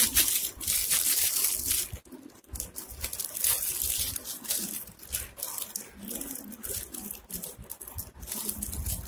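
Aluminium foil and plastic wrapping crinkling and rustling as hands unwrap a small package. It comes in irregular bursts, loudest in the first two seconds, with a brief lull about two seconds in.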